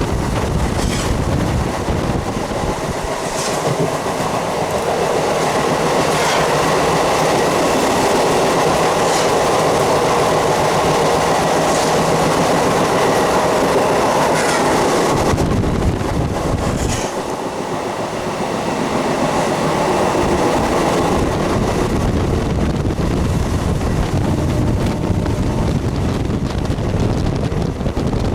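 MEMU electric train running along the track, a steady rumble with the wheels clicking over rail joints every few seconds.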